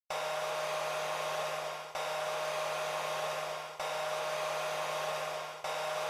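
Hair dryer running: a steady rush of air with a constant whine. The sound is cut into a loop that restarts abruptly about every two seconds, with a slight dip just before each restart.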